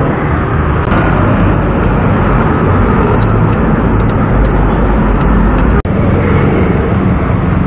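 Steady roar of road traffic, with a low engine rumble under it and a few faint ticks. It cuts out for an instant near six seconds.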